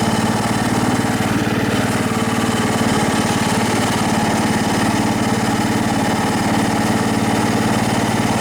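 Old Craftsman riding mower's small engine running steadily with an even, fast pulse, freshly started after sitting unused for a while.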